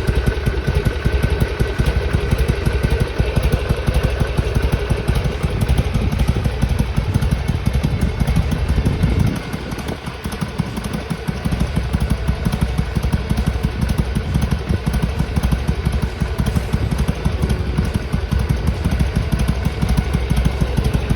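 Harley-Davidson Sportster XL883R's 883 cc air-cooled V-twin idling while it warms up, with a brief dip in its sound about nine seconds in. The owner says the engine still sneezes, spitting back through the intake, even when warmed up, and suspects he has over-adjusted the idle.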